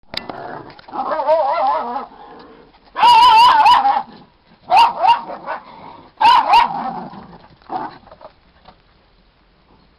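Small dogs barking and vocalising in rough play: about five bouts of wavering, drawn-out barks, the loudest about three seconds in, tailing off near the end.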